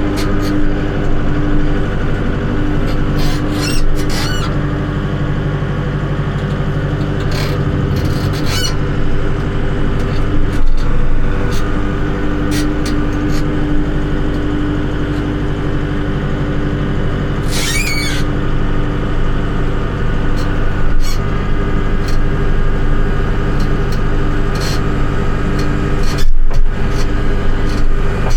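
An engine running steadily at a constant speed, with a few short clicks and knocks over it.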